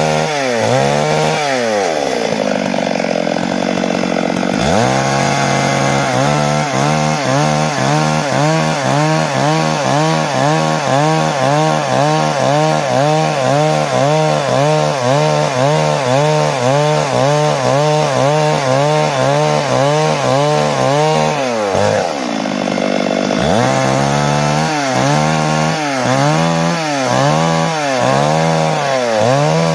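Stihl MS 382 two-stroke chainsaw ripping lengthwise along a log, its engine note wavering up and down in a quick, even rhythm as the saw is worked through the cut. Twice, a couple of seconds in and about three-quarters of the way through, the engine drops to a lower, steadier note before picking up again.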